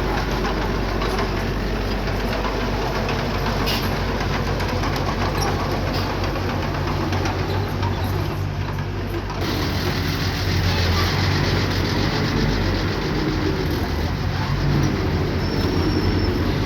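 Small crawler bulldozer's diesel engine running steadily, with a constant metallic clatter, growing a little louder about ten seconds in.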